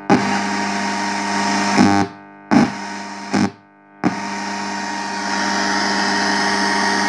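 Maxitronics shortwave radio kit's loudspeaker giving loud static over a steady hum, which cuts in and out as the antenna wire is touched to the terminal. It is on for about two seconds, then two short bursts, then steady from about four seconds in. With the few-metre antenna on the 6–8 MHz coil the receiver is only worse, not working well in that range.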